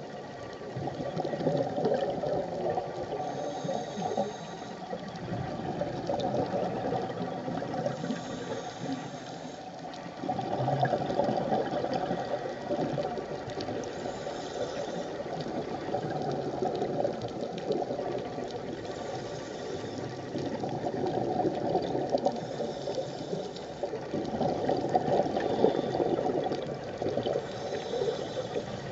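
Scuba regulator breathing heard underwater: a bubbly rushing of exhaled air that swells and fades every few seconds.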